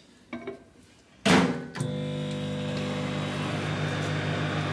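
A bowl set down inside a microwave oven, the door shut with a thud about a second in, then the microwave switches on and runs with a steady hum while heating porridge.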